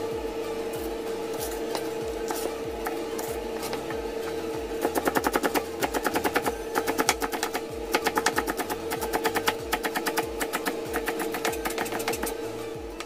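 Kitchen knife finely slicing green onions on a cutting board: quick runs of chops, about ten a second, in bursts with short pauses, starting about five seconds in.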